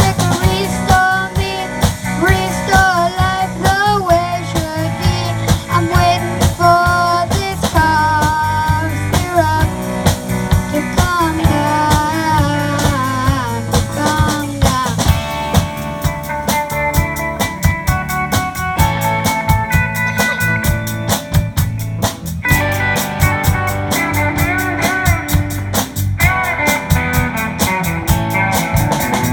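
A band playing a rock song on guitar, bass and drums. For about the first half a melody line bends and slides over the band; from about halfway it gives way to steadier held chords over a busy, fast cymbal beat.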